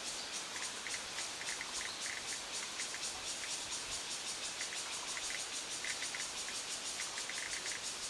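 Cicada song: a rapid, steady pulsing high buzz, with short chirps scattered irregularly through it at a lower pitch.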